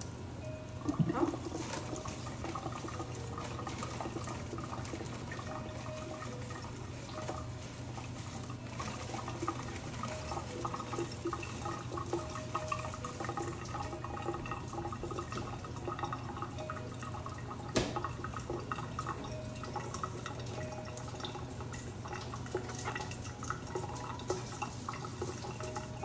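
Water running from a kitchen tap into a sink as dishes are washed up, with light clinks and one sharp knock about two-thirds of the way through.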